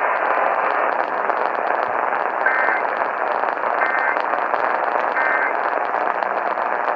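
Steady radio static with three short bursts of warbling two-pitch Emergency Alert System data tones, about a second apart: the end-of-message code that closes the severe thunderstorm warning.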